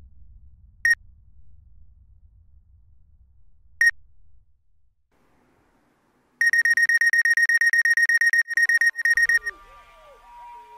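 Electronic beeps of a single high pitch: one beep about a second in and another near four seconds, then a rapid run of about ten beeps a second for three seconds, briefly interrupted twice, as a countdown reaches zero. Near the end, low sustained tones with sliding pitches take over.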